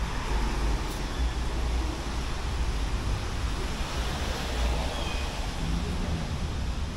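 Steady city street noise: a continuous hiss of traffic with a low rumble underneath.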